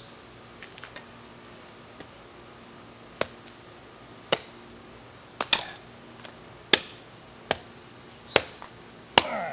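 Sharp clacks of a hand tool striking at a LiPo battery pack lying on concrete pavement. They come about once a second, seven or eight in all, beginning about three seconds in.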